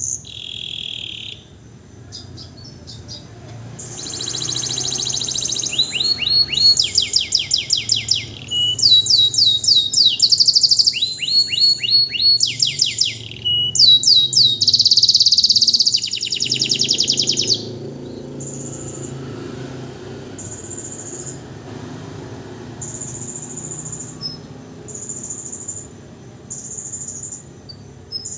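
Domestic canary singing in full voice just after its moult: loud, fast trills of rapidly repeated high notes from about four seconds in, changing to softer, short high phrases repeated at intervals from about seventeen seconds on.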